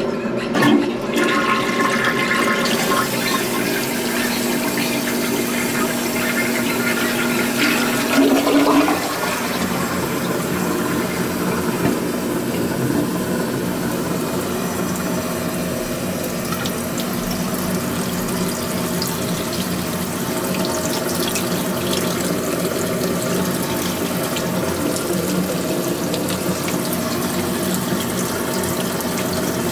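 Toilet flushing, water rushing and swirling through the bowl, followed by a bathroom sink faucet running steadily, with hands rinsed under the stream near the end.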